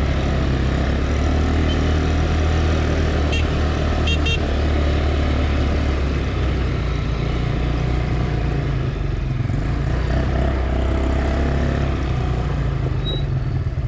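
ATV engine running steadily, a low hum with a rushing noise over it. A few brief high chirps come about three to four seconds in.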